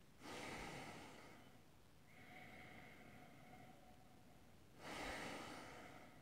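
A man sniffing whisky in a tulip nosing glass: two long nasal sniffs, the second about four and a half seconds after the first.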